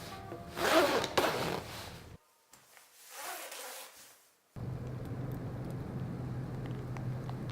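Two bursts of rubbing noise, the first louder, each cut off suddenly. Then a steady low hum with a few faint ticks.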